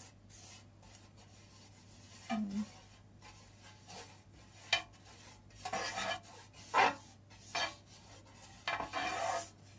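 Silicone pastry brush rubbing olive oil across a nonstick electric griddle plate: a series of short brushing strokes, coming thicker and louder in the second half.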